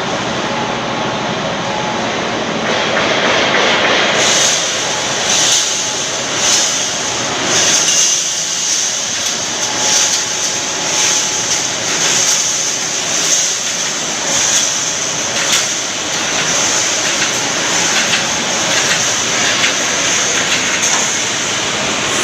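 Automatic wire mesh welding machine running: steady machine noise with a high hiss, and a welding stroke about once a second as it advances the mesh.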